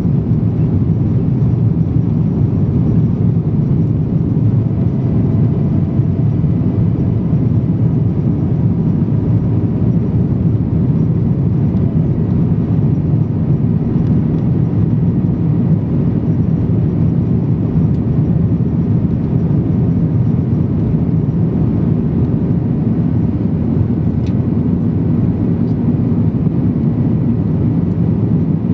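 Steady cabin noise of a Boeing 737-900ER in flight, heard from a window seat over the wing: a low, even rumble of its CFM56-7B turbofan engines and the rush of air past the fuselage.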